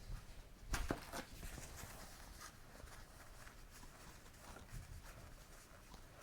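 Faint handling sounds from cleaning a motorcycle's drive chain and rear sprocket by hand, with a short cluster of clicks and knocks about a second in, then scattered light ticks.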